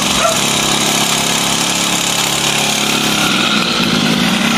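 A 49cc two-stroke mini dirt bike engine running under throttle as the bike pulls away and rides off, its note wavering a little about three seconds in.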